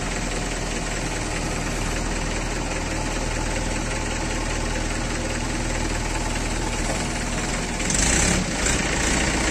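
JCB 3DX backhoe loader's diesel engine running steadily under hydraulic load as the backhoe arm lifts a heavy concrete pipe. A brief louder rush of noise comes about eight seconds in.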